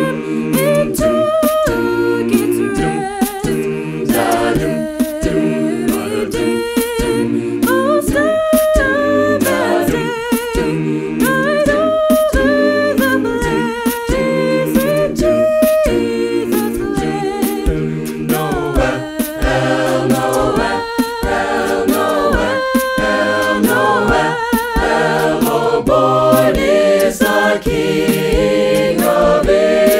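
A cappella vocal group singing in layered harmony, with no instruments. The voices move together continuously and no words stand out.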